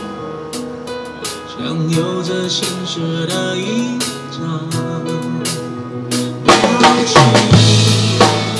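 Acoustic drum kit played live over a backing track of a pop song with a singing voice. The drumming is sparse at first, then about six and a half seconds in it becomes denser and louder.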